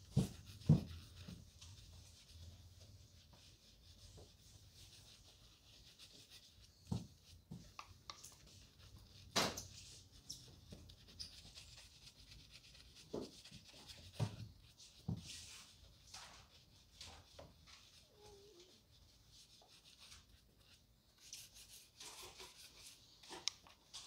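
Faint rubbing and scrubbing as cleaner is worked into leather loafers during a shoe shine, broken by scattered light knocks and taps. The strokes come thicker and faster near the end as a brush is worked over the shoes.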